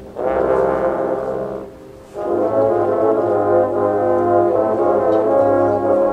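High school marching band brass section playing a loud held chord that breaks off after about a second and a half, then a second sustained chord coming in about two seconds in.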